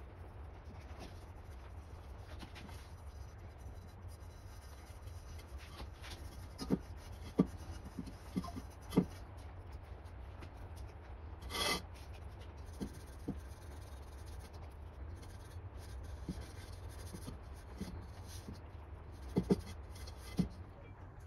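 Hands rubbing and handling a wok on a wooden workbench: soft rubbing with scattered light knocks, a brief scraping rush about halfway through, and a few sharper knocks near the end.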